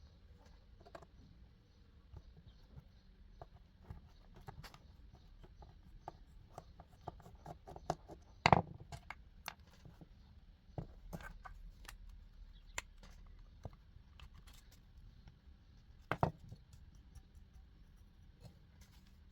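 Scattered small clicks, taps and scrapes of hands handling small parts, with two louder knocks, one about eight and a half seconds in and one about sixteen seconds in.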